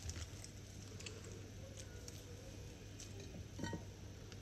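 Faint handling noises as minced meat is squeezed from a plastic bag into a parboiled rigatoni tube: soft squishing, plastic crinkling and small clicks. About three and a half seconds in comes a light clink that rings briefly, as against the glass baking dish.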